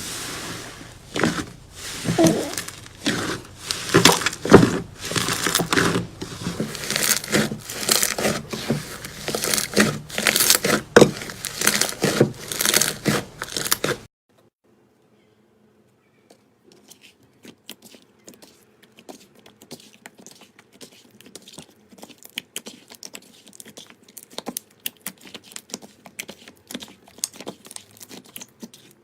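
Slime being squeezed and stretched by hand, a dense run of crackling and popping clicks. The crackling cuts off suddenly about halfway through and comes back fainter a couple of seconds later.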